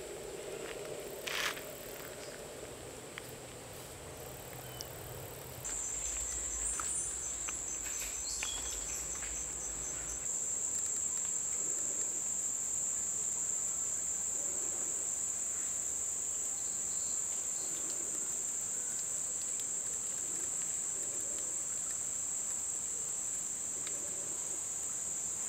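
Insects calling in a steady, high-pitched continuous drone, which grows louder about six seconds in and again about ten seconds in. There is a single click about a second and a half in.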